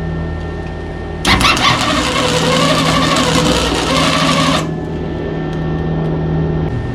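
Electric arc welder striking an arc on steel handlebar tubing and welding for about three seconds, a dense steady crackle that starts and stops abruptly, over a low steady hum that cuts off shortly before the end.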